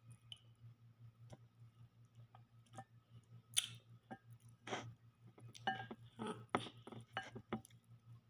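Close-up eating sounds: chewing and mouth smacks, with scattered clicks of fingers picking noodles and chicken from a glass bowl. The sounds come more often in the second half, over a steady low hum.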